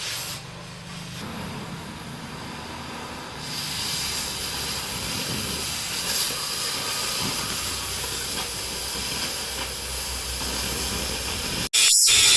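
Steady hiss of a gas cutting torch cutting through thick 16 mm steel plate. It grows louder about three and a half seconds in and cuts off sharply near the end.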